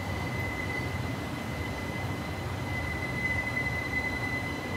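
JR 211 series electric train slowing into a station, its braking wheels giving one steady high-pitched squeal, louder in the second half, over a low rumble of the running gear.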